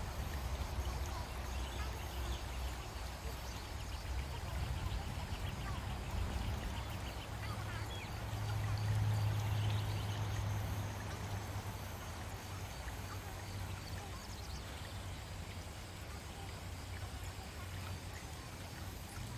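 Steady outdoor nature ambience of running water, with a low rumble that swells about nine seconds in.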